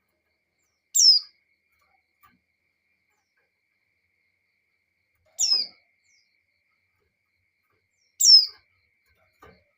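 Female white-eye (pleci) giving three short, high calls, each sliding down in pitch, a few seconds apart: the call a female in breeding condition uses to draw males.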